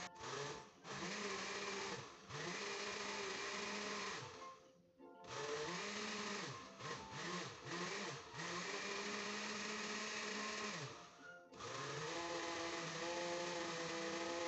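Oster countertop blender motor blending a smoothie, switched off and on several times. Its pitch sags as it winds down at each stop and climbs again as it spins back up.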